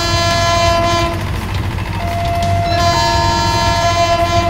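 Train horn blowing long chord blasts twice: one already sounding and stopping after about a second, a second starting about three seconds in. From about two seconds in a two-tone warning signal starts underneath, switching pitch at roughly one-second steps, over a steady low hum.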